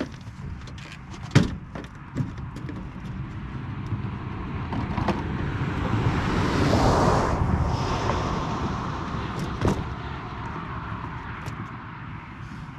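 A vehicle passing by, growing louder toward the middle and then fading away, with a few sharp knocks or clicks along the way.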